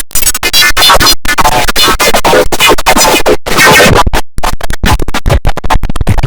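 The IBM OS/2 Warp 3 shutdown sound, heavily distorted by stacked audio effects and chopped into rapid stutters broken by short gaps, loud throughout.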